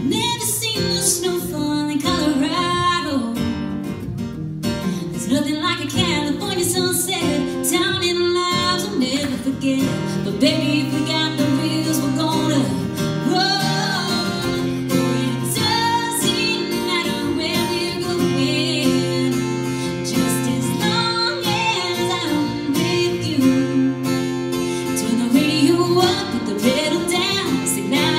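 Live song performance: a woman singing with acoustic guitar accompaniment.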